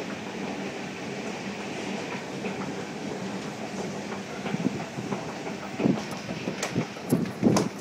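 Escalator running with a steady mechanical rumble and hum. From about four and a half seconds in come uneven thumps and knocks as the rider steps off onto the hard floor and walks on, the loudest near the end.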